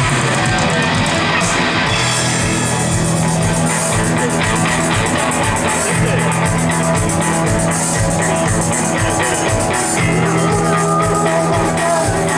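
A rock band playing live and loud, with electric guitar, bass and drum kit.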